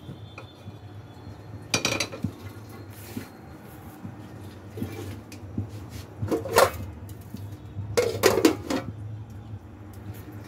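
Aluminium pots and lids clanking as they are handled and set down: a clank about two seconds in, another past the middle, and a quick cluster of clanks near the end, over a low steady hum.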